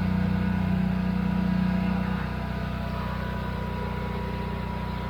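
Engine of ride-on lawn equipment running steadily close by; its note drops and quietens about two seconds in.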